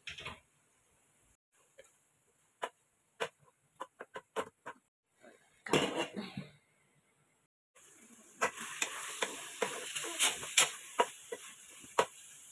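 Light clicks of utensils on a metal pan, then a clatter about six seconds in as the steel lid goes onto the pan. From about eight seconds a steady sizzle of the simmering liver-and-vegetable stew, with a wooden spatula scraping and knocking against the pan as it is stirred.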